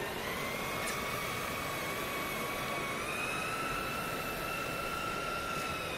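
Tracked rescue robot's electric drive motors whining as it climbs onto a pipe obstacle under load. The steady whine steps up in pitch just after the start and again about three seconds in, over a steady background hiss.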